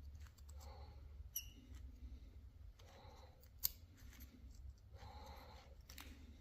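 Hand chisel paring shavings from a maple honey dipper blank: a series of short, faint scraping cuts, with one sharp click a little past halfway.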